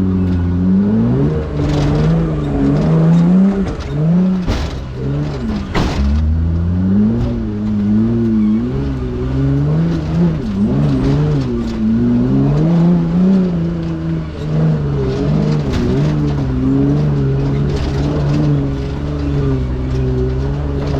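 An off-road vehicle's engine revving up and down as it works over rough terrain. A couple of sharp knocks come about four and a half and six seconds in.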